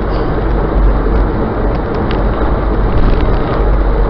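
Steady cabin noise of a car driving at highway speed, heard from inside: a loud low rumble of engine and tyres on the road, with wind.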